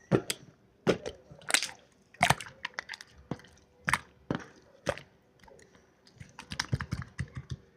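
Marbled slime being squished and pressed by hand, making sharp, irregular clicks and pops about one or two a second, with a quick run of small pops near the end.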